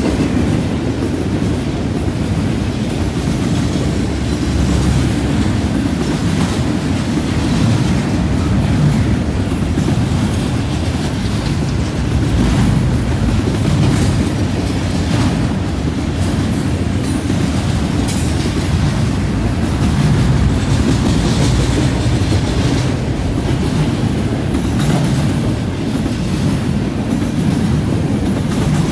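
Double-stack intermodal freight train's container well cars rolling past, a steady low rumble of steel wheels on rail with occasional sharp clacks.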